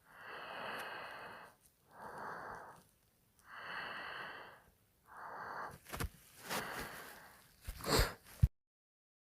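A sleeping person's breathy snoring: about five long in-and-out breaths, some with a faint whistle. A few sharp clicks come near the end, and the sound cuts off suddenly about eight and a half seconds in.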